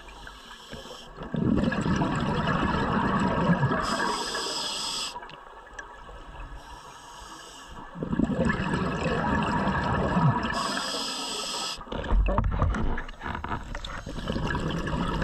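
Scuba diver breathing underwater through a regulator: about three breaths, each a brief hiss of inhaling, then a loud burble of exhaled bubbles lasting a few seconds.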